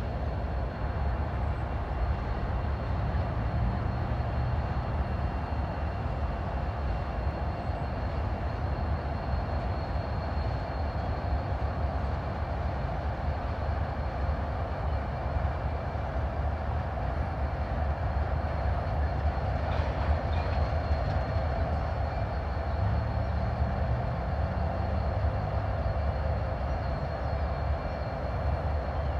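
Norfolk Southern freight train, diesel locomotives and tank cars, rolling over a railroad bridge: a steady low rumble with a faint thin high whine above it.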